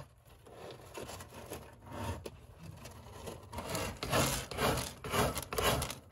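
Munchkin cat's paws scratching and raking cat litter to cover its droppings: rasping strokes, faint at first, then louder from about three and a half seconds in at roughly two strokes a second.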